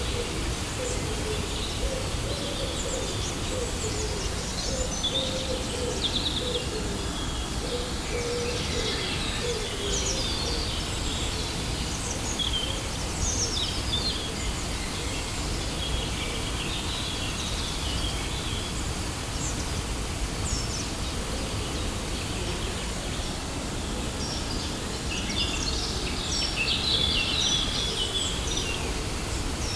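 Steady rushing of a waterfall, with birds chirping and twittering over it throughout, busiest near the end.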